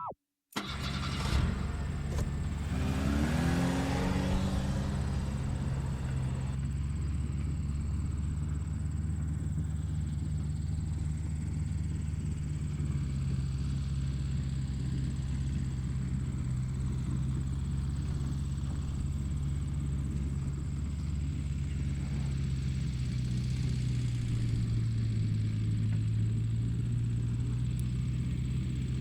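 Engine starting about a second in, its pitch rising as it revs up, then running steadily with a low drone whose pitch shifts slightly a couple of times.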